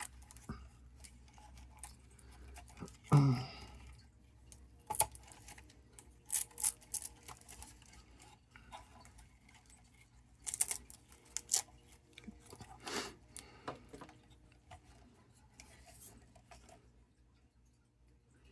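Scattered small plastic clicks and rattles from a 1/24-scale RC crawler being handled and turned over in the hands.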